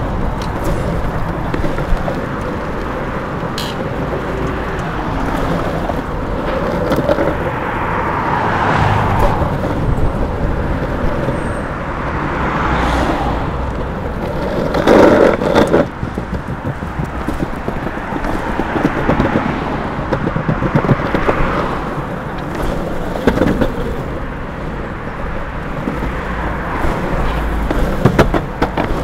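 Longboard wheels rolling over asphalt and paving, a steady rumble with scattered short clicks. Cars pass on the road alongside in slow swells, the loudest about halfway through.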